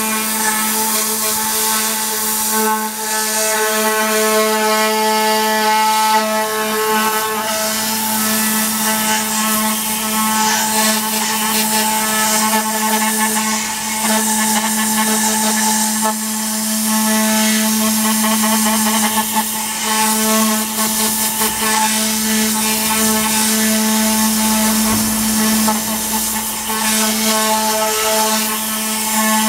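Compressed-air cleaning gun blowing on a car's interior door panel: a loud steady hiss with a steady pitched hum under it.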